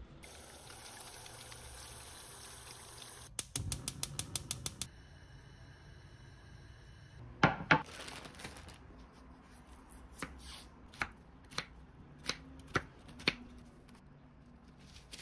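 Kitchen knife chopping vegetables (onion and chives) on a wooden cutting board: a quick rattle of clicks, two louder knocks, then six sharp single chops spaced about half a second to a second apart.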